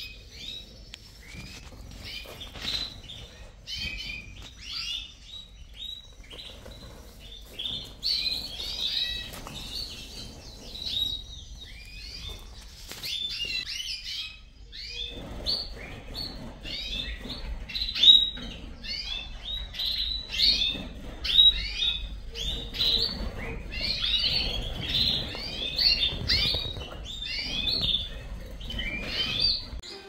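Many caged canaries and other finches chirping and calling at once in a breeding room: a dense, unbroken chatter of short high chirps, with a low rumble underneath from about halfway.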